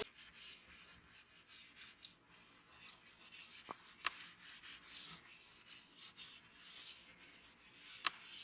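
Faint short rubbing strokes in quick succession, with three sharp clicks: two about four seconds in and one near the end.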